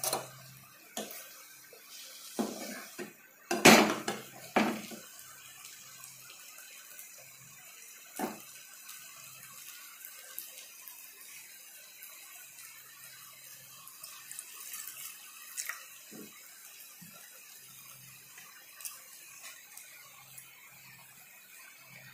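Curry sizzling in a frying pan, with a metal spatula knocking and scraping against the pan several times, loudest about four seconds in.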